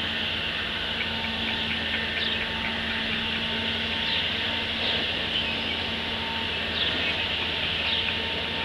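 Chick peeping: several short, high, falling peeps over a steady hiss with a low hum.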